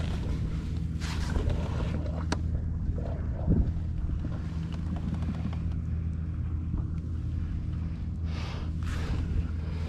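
A steady low mechanical hum, boat-engine-like, with a few light knocks and scrapes on the kayak.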